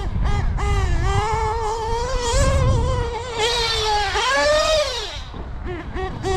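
Novarossi .28 nitro engine in a Losi 8ight XT 1/8-scale truggy, revving hard with its pitch held high for a few seconds. About four seconds in, as the truck jumps, the pitch climbs and then falls away, and short throttle blips follow near the end.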